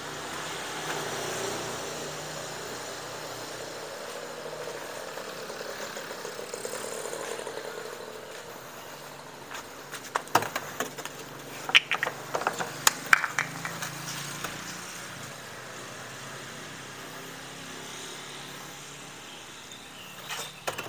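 A cluster of sharp clicks and knocks about ten to thirteen seconds in, from things being handled and set down, over a steady outdoor background noise. The diesel engine is not running.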